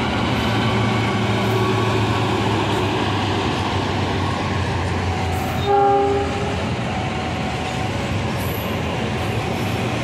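Passing passenger train hauled by a diesel locomotive: steady engine hum and wheel-on-rail noise from the moving coaches, with one short horn blast a little under six seconds in.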